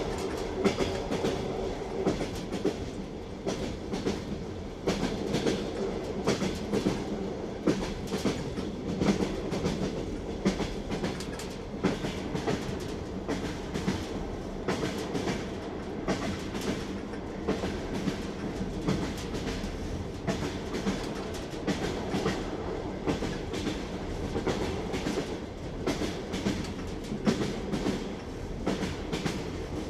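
Train wheels knocking over the rail joints of a moving train: frequent clacks over a steady rumble.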